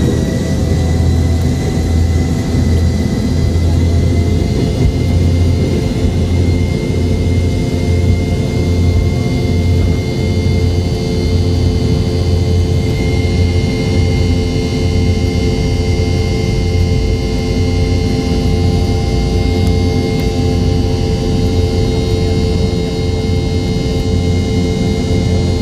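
Boeing 717's Rolls-Royce BR715 turbofans running at steady takeoff thrust, heard from inside the cabin during the takeoff roll. A steady high whine sits over a heavy low rumble.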